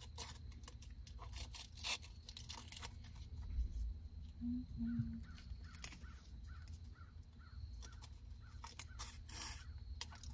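Quiet handling noise of a baby car-monitor camera's mounting straps being re-looped through their plastic headrest bracket: scattered rustles, scrapes and light clicks.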